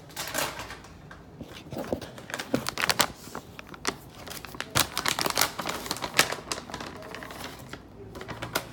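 A plastic bag of dog treats crinkling and rustling in the hands, with irregular crackles and clicks as it is handled and rummaged through.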